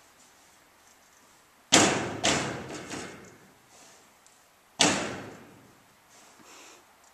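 A horse's front hoof pawing and striking the lowered ramp of a horse trailer: three sharp bangs in quick succession about two seconds in, then one more about five seconds in, each dying away briefly. The pawing is a sign of the horse investigating the ramp or of frustration.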